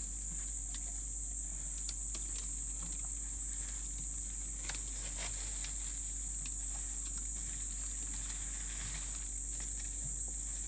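An African elephant feeding on a bush, its pulling at the branches making scattered crackles and snaps of twigs and leaves. A steady high-pitched insect drone runs underneath.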